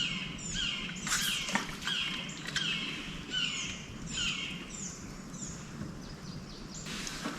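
A bird calling over and over with short, high, falling notes, about one or two a second, which stop about two-thirds of the way in.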